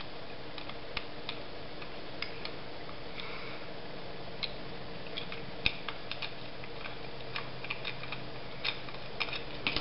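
Irregular small clicks and ticks as a precision screwdriver turns out a screw from a Hornby model locomotive's chassis, with the clicks coming more often near the end. A steady faint hum runs underneath.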